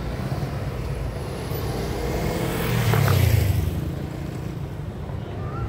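A car passing by, its noise swelling to a peak about halfway through and fading away again, over a steady low rumble.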